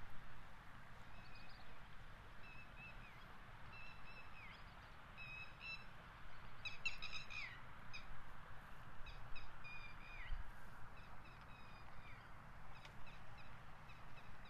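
Birds calling: a series of short, clear whistled notes, several ending in a downward slur, with a busier burst of calls about halfway through, over a steady outdoor hiss.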